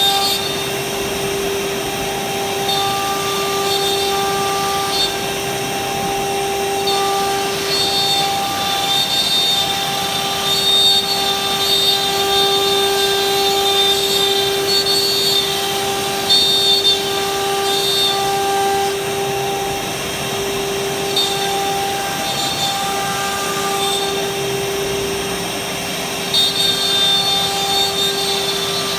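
Linear ATC CNC router running a test job. The spindle gives a steady whine over a hiss, and a higher whine comes and goes every second or two as the machine moves.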